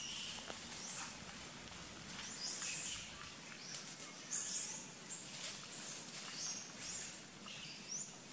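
Short high-pitched animal chirps, about one every half second to second, the loudest about halfway through, over a soft outdoor background.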